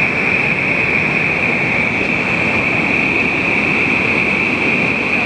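Iguazu Falls' water rushing over the brink close by, a steady, loud noise that never breaks.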